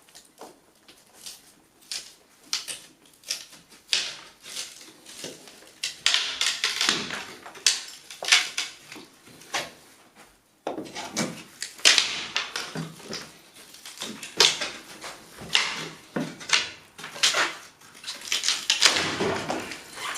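Old wooden electrical conduit casing being wrenched and prised off a plaster wall with a hand tool: a run of irregular knocks, cracks and scraping.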